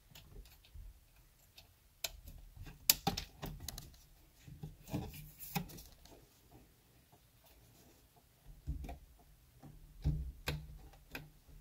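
Irregular small clicks and light knocks of hard plastic being handled: the airbag module's wiring connector being plugged in and the module being fitted back against the steering wheel.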